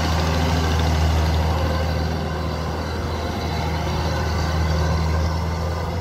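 Kubota DC-105X combine harvester's diesel engine running steadily, a low, even engine note.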